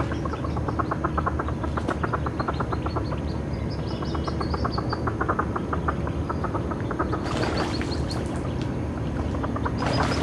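Hooded merganser hen clucking in a fast, even run, about six calls a second, for the first six seconds, the call that tells the ducklings to follow her, with the ducklings' high-pitched peeps above it. Two short noisy rushes come about seven seconds in and at the end.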